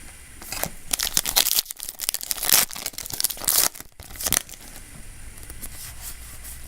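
Foil booster pack of trading cards being torn open and crinkled, a run of sharp rustling and ripping that dies down about four and a half seconds in.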